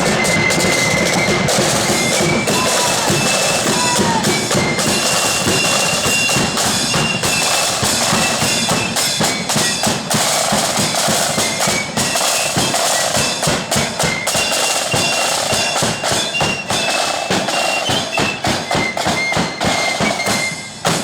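Marching flute band playing in the 'blood and thunder' style: shrill flutes carrying the tune over heavy, rapid bass and snare drumming.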